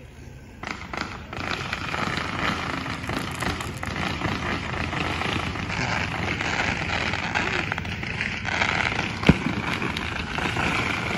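Fireworks crackling in a dense, steady stream, with one sharp bang about nine seconds in.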